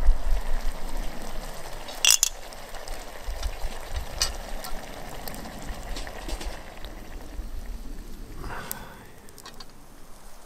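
Pot of food bubbling and steaming over a campfire while a wooden spoon stirs it, with a few sharp clicks, the loudest about two seconds in.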